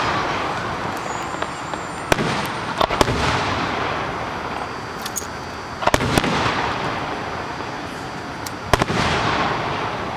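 Aerial fireworks shells bursting in small clusters every few seconds, each group of sharp bangs followed by a fading crackle.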